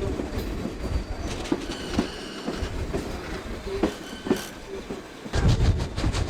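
Train rolling on the rails: wheels clicking over rail joints with a steady low rumble and brief thin wheel squeals. A louder low rumble comes in near the end.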